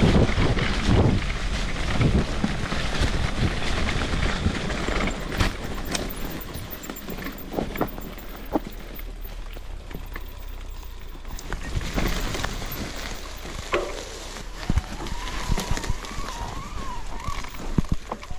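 Riding a Cube HPC SL bicycle, recorded on a GoPro Hero 10: wind rush and tyre noise, strongest in the first few seconds, with scattered knocks and rattles from the bike over the ground.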